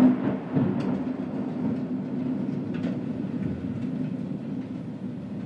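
Thunder: a sudden clap at the start, a second crack about half a second later, then a long low rumble that slowly fades.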